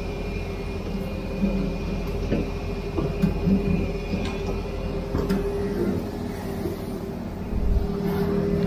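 A truck's engine running steadily, a constant low rumble and hum, with scattered rattles and knocks over it.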